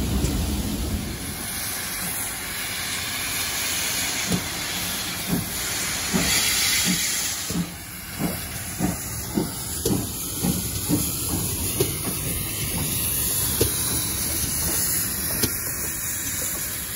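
Passing coaches rumble away in the first second. Then a GWR Modified Hall 4-6-0 steam locomotive, No. 6960 Raveningham Hall, moves off slowly, its exhaust beating about twice a second with hissing steam.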